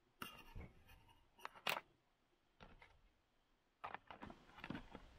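Faint clicks and taps of small clear acrylic boxes and their snap-on lids being handled, a scattering of brief knocks with the sharpest about a second and a half in and another cluster near the end.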